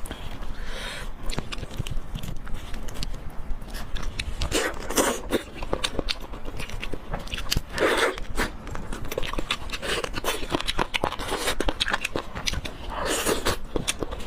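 A person eating pork leg curry with rice, chewing close to the microphone: a run of quick wet clicks and smacks, with louder chewing bursts every few seconds.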